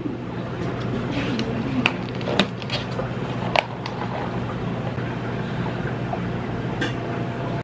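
A clear plastic dome lid being pressed onto a plastic iced-drink cup, giving a few sharp plastic clicks and snaps in the first few seconds and one more near the end, over a steady café background hum.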